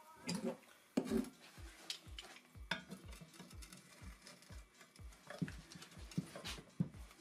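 Penetrating oil sizzling on a hot, smoking steel steering knuckle, then a pipe wrench clinking and scraping against the ring left in the wheel-bearing bore as it is gripped and worked. A low, even beat of background music, about two and a half thumps a second, runs underneath.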